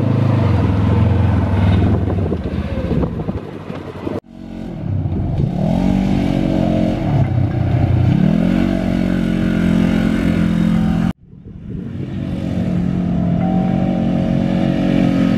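Polaris General 1000 side-by-side's parallel-twin engine running hard while driving, heard in three abruptly cut segments. In the middle one the engine note dips and rises several times as it revs, then holds steady.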